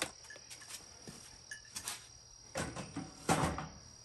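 A removed plastic motorcycle side fairing being handled and set aside: a few light clicks, then two short knocking, rustling bursts about two and a half and three and a quarter seconds in. Crickets sing steadily in the background.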